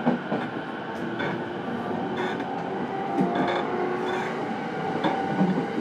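JR East E231-series commuter train heard from inside a motor car while running: a steady whine from the traction motors and gears, with a clack of wheels over rail joints about once a second, some in quick pairs.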